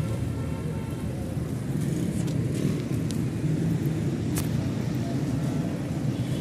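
Steady low rumble of motor-vehicle engines and street traffic, with one sharp click about four and a half seconds in.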